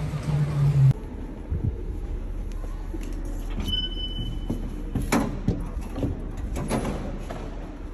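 Metro station ticket gate: a short electronic beep from the validator as a pass is presented, then knocks and clunks, over the station's hollow background noise. The first second is busy outdoor crowd noise before it cuts away.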